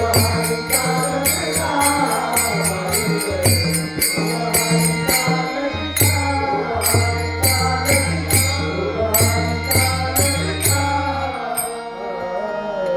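Devotional Varkari bhajan: a man chanting a sung melody over sustained low accompaniment, with metal cymbals struck in a steady beat about three times a second. The music stops about a second and a half before the end.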